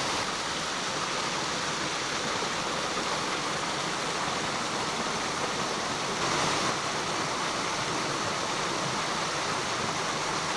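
Mountain stream water rushing steadily over rocks, a constant even rush with a slight swell partway through.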